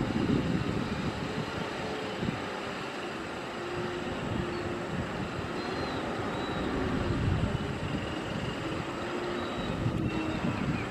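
Concrete mixer truck's diesel engine running steadily with a low rumble as the truck reverses.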